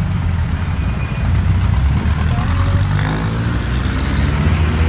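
Jeepney engines running close by in slow traffic, a low steady rumble, with one engine revving up about three seconds in.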